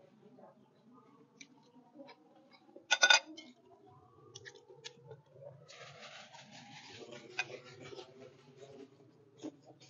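Close-up eating sounds: chewing and crunching of stir-fried water spinach, with scattered clicks and a sharp, loud clatter about three seconds in.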